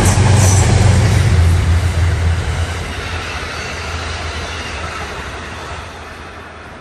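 Train passing and pulling away: a loud low drone with rumbling noise for the first two seconds or so, then fading steadily as it moves off.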